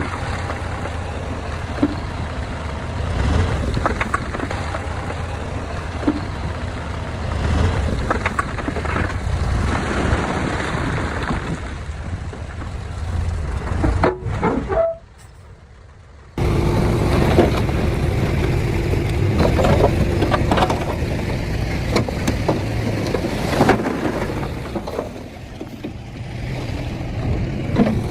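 Diesel engine of heavy earthmoving machinery running under load, with scattered clanks. The sound drops away suddenly for about two seconds near the middle, then comes back at full level.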